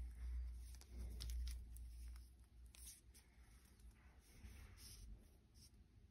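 Faint rustling and a few light clicks from cotton-gloved hands handling a wristwatch and flexing its rubber strap, with a low rumble during the first two seconds.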